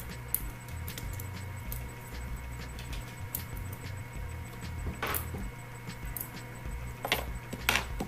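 Metal tweezers clicking against a tablet's frame and glass: a few sharp ticks, the loudest about five seconds in and twice near the end, over faint background music and a steady low hum.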